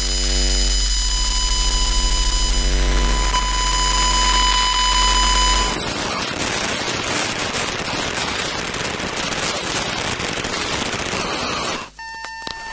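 Electronic circuitry picked up by a coil pickup: a steady electrical buzzing hum with a high whine on top. It switches abruptly, a little before halfway, to dense crackling static full of tiny glitchy clicks. Near the end comes a short, steady electronic beep.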